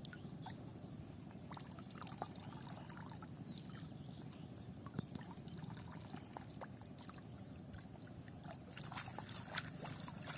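Faint water trickling and dribbling, with small scattered splashes and light clicks over a low, steady hum.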